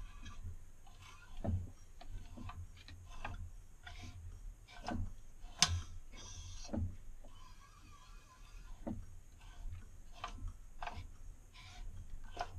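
Light clicks and knocks from hands working at an open-topped overhead-valve lawnmower engine, irregular, about half a second to a second and a half apart, with the sharpest one a little past halfway. There are two brief faint squeaks.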